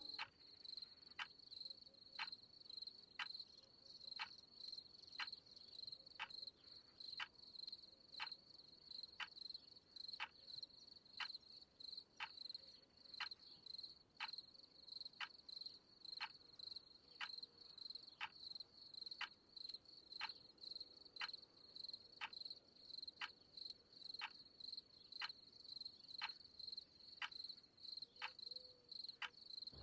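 Faint, steady cricket chirping, with a soft tick about once a second.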